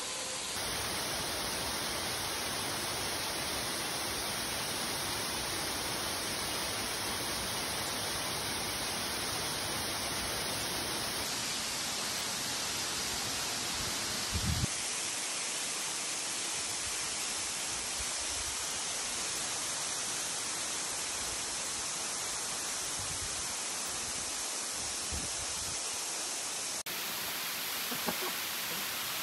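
Steady, even rushing hiss with no distinct events. Its tone shifts abruptly a few times, and there is a brief low thump about fourteen seconds in.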